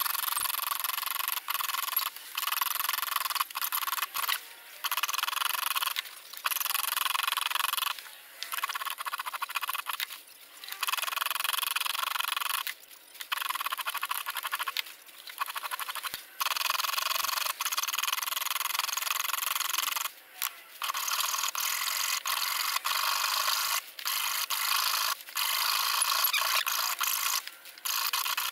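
Hand file rasping across a brass knife guard clamped in a vise, in long strokes of a second or two with short breaks between them.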